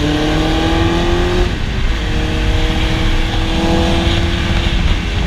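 Honda CB650's inline-four engine pulling hard, its pitch rising, then dropping briefly as the rider shifts up about a second and a half in, after which it pulls again and climbs slowly. Wind rushes over the microphone underneath.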